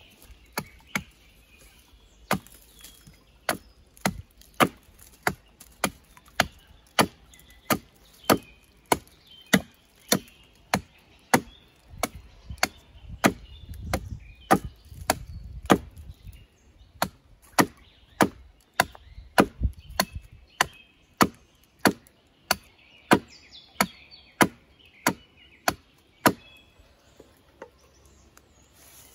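An axe chopping wood: steady, evenly spaced blows, a little under two a second, that stop near the end.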